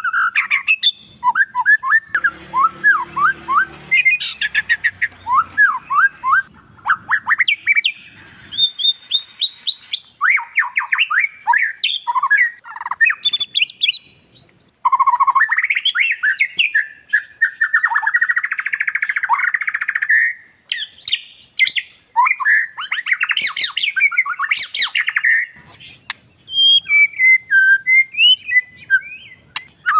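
Oriental magpie-robin (kacer) singing continuously and loudly: fast runs of whistled notes, chirps and trills that slide up and down in pitch, with a harsher buzzing phrase midway and a couple of short pauses.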